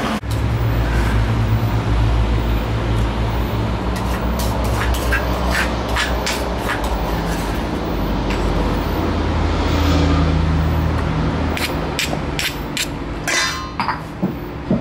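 A metal spoon clicks and knocks against the mortar and bowl in scattered bunches while pounded garlic and coriander-root paste is scooped onto raw chicken wings. A steady low hum runs underneath.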